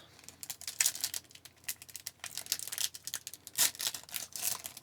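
Trading cards and their pack wrapper being handled: quick, irregular light clicks and crinkling as the cards are slid and flipped.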